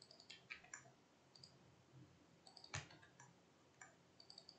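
Faint, scattered clicks of a computer keyboard and mouse as code is edited, with one louder click a little past halfway.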